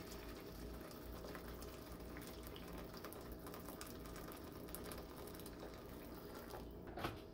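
Freshly boiled water pouring in a steady, faint stream from a stainless-steel kettle into a shallow nonstick frying pan of water. The pour stops near the end.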